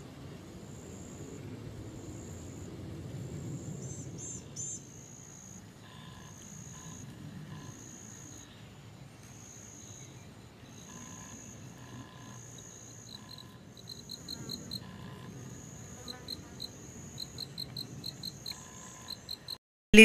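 Insects calling: a high buzzing call about a second long, repeated with short gaps, joined in the second half by fast trains of short chirps, over a faint low rumble.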